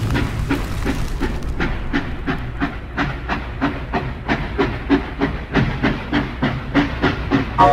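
Steam-locomotive sound effect in the show's soundtrack: a steady rhythmic chuffing of a steam train under way, about four beats a second, over a low rumble, with a hiss of steam that fades out in the first second or two.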